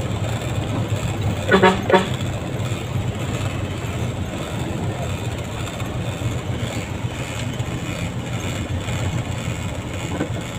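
Fuso tractor head's 10DC11 diesel engine running steadily while cruising in fifth high, heard from inside the cab. About one and a half seconds in comes a short horn toot.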